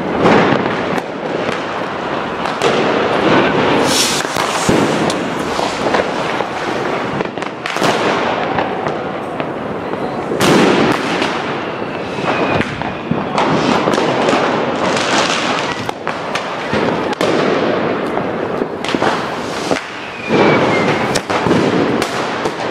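Fireworks and firecrackers going off in a dense, near-continuous barrage of cracks and bangs, with a few louder blasts standing out, one near the start, others around four, ten and twenty seconds in.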